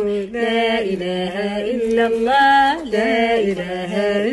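Women's voices chanting an Arabic devotional poem for the Prophet's birth month, drawing out long held notes that bend up and down in pitch.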